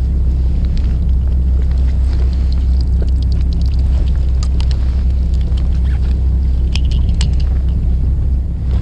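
Steady low rumble of a fishing boat's engine, with wind buffeting the microphone. A few faint ticks come in the middle.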